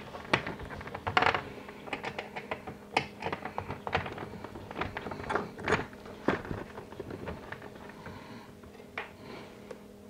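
Irregular light metal clicks and clinks as a steel slide-out cable and its eye bolt are handled and fitted back into the chain connector bracket, thinning out over the last few seconds.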